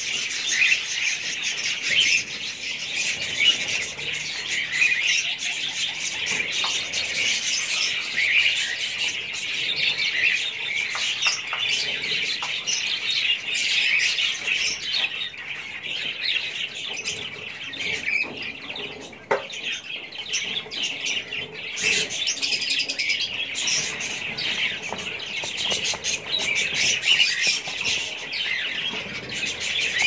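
Many caged birds chirping together: a dense, unbroken chatter of high, overlapping calls.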